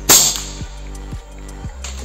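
PCP bullpup air rifle firing a single shot: a sharp crack just after the start with a short ringing tail. Near the end a short click as the rifle's action is cycled for the next pellet.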